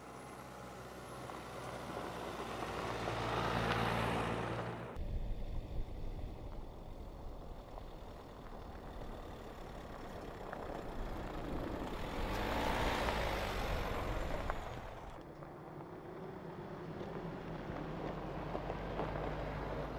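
Nissan NP300 Navara pickup driving over a loose gravel track: engine running with tyres crunching on the stones, growing louder twice as it passes close, with the sound changing abruptly at cuts between shots.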